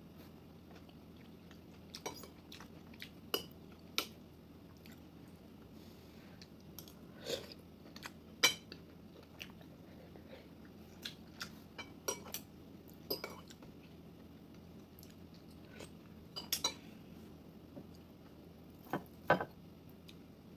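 A person eating: chewing, with cutlery clinking against a dish in scattered sharp clinks, the loudest about eight seconds in and near the end.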